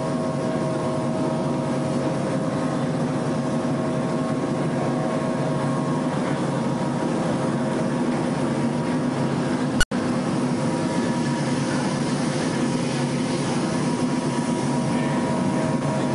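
Aircraft engines running with a steady drone and a few held tones. About ten seconds in, a single sharp click with a momentary dropout.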